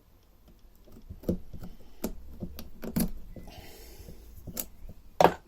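Light metal clicks and taps, scattered irregularly, as a small circlip is worked onto the groove of a Honda roller mower gearbox shaft, with one louder sharp snap near the end.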